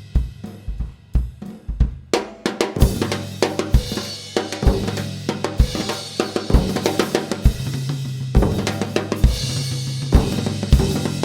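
Live band music driven by a drum kit: a steady kick-drum beat with snare and cymbals over a bass line. The playing fills out about two seconds in.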